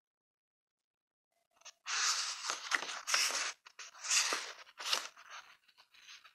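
Rustling and crinkling handling noise close to the microphone, a quick run of several bursts starting about two seconds in and thinning out near the end.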